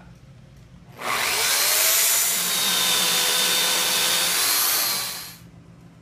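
Corded Makita electric saw in a micro mill cutting square through an 8x8 timber beam. It starts about a second in, runs steadily with a whine for about four seconds, then winds down.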